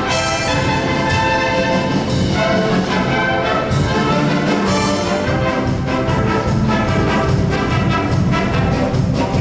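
Show choir's live band playing an instrumental passage led by brass, trumpets and trombones. Percussion hits mark a steady beat in the second half.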